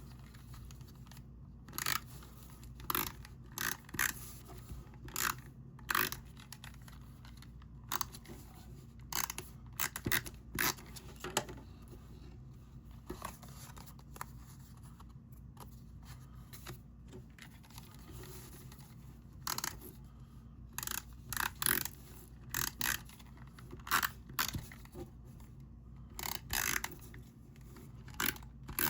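Cardstock rustling and scraping in short, irregular bursts as a pop-up card's backing is handled and fitted into the card, over a low steady hum.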